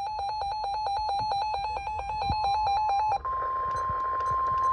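An electronic alert alarm beeps rapidly and evenly. About three seconds in, it gives way to a steady weather-radio warning alarm tone over a hiss of radio static.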